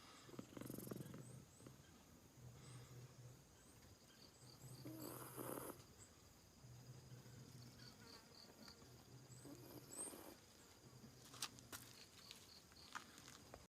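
Siamese cat snoring in its sleep, a faint low snore with each breath, roughly every two seconds. A few sharp clicks near the end.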